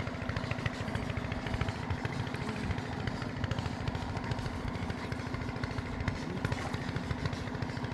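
Small engine running steadily at an even speed, with a fast low pulse and a steady hum.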